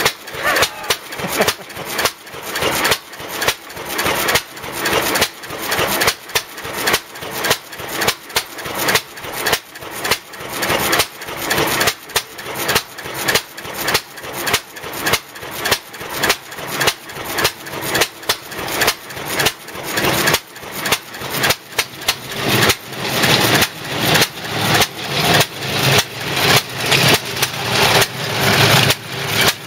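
Dennis motor mower's single-cylinder side-valve air-cooled petrol engine running with a slow, even firing beat. It grows louder about two-thirds of the way through as the mower is driven closer.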